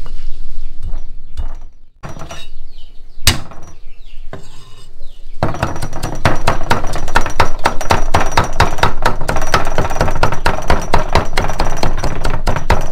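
A steel cleaver chopping shallots on a thick wooden chopping block. A few separate knocks come first, then from about five seconds in a fast, steady run of chops, mincing them.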